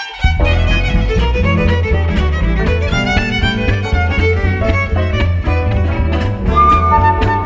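Hungarian Gypsy band playing a csárdás. A violin carries the tune over a cimbalom struck with hammers, and the full band comes in just after the start with a steady, pulsing low accompaniment.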